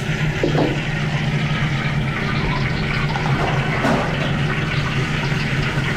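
Steady rushing noise with a low hum from a restaurant wok station: the gas wok burner and kitchen extraction running.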